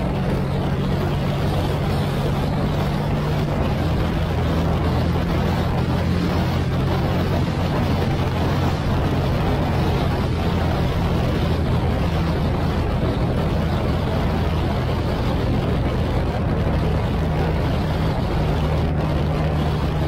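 Motorcycle engine running at road speed under a steady rush of wind over the microphone; the engine note steps to a new pitch a few times as the speed changes.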